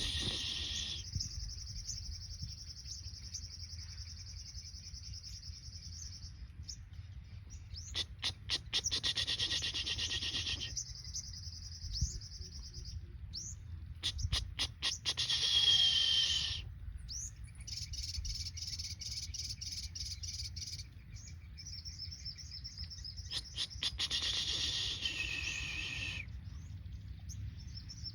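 Sunbird song: about four bouts, each a run of sharp chips followed by a long, high, very rapid trill lasting a few seconds, over a steady low rumble.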